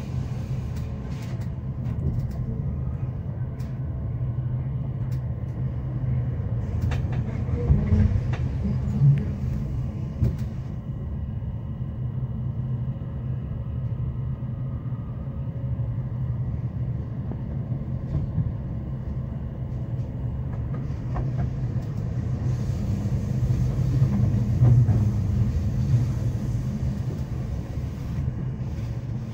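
Inside a Rhaetian Railway passenger car running on the line: a steady low rumble of wheels on the rails, with a few louder knocks around eight to ten seconds in and again near twenty-five seconds.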